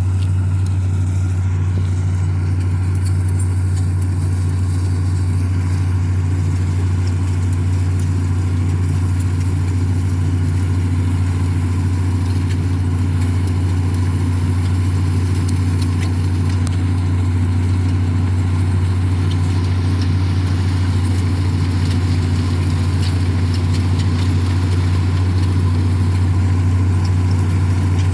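Combine harvester engine running steadily at constant speed, a deep even drone with no change in pitch.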